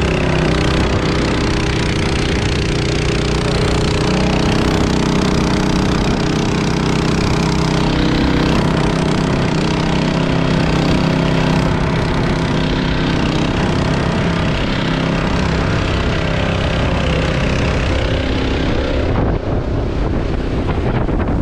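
Small petrol engines running steadily, a portable gas dewatering pump and a boat outboard, over water rushing past the hull and wind buffeting the microphone. Near the end the engine note drops back and the wind and water noise comes forward.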